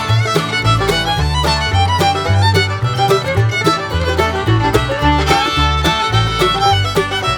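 Background music: an upbeat fiddle tune over a steady bass line.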